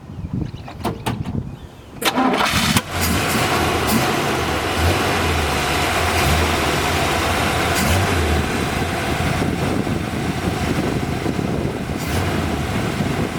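1965 Corvette's rebuilt numbers-matching 327 V8 cranking briefly on the starter about two seconds in, catching, then idling steadily.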